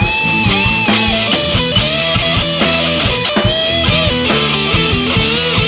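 Hard rock played on electric guitars, bass guitar and a drum kit, an instrumental passage with no singing. A lead guitar line of held notes that bend up and down rides over the steady drum beat and bass.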